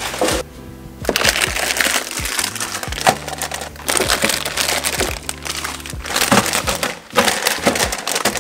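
Plastic instant-noodle packets crinkling and rustling as they are handled and stacked, with sharp clicks and light knocks against the shelf and plastic bins, over background music.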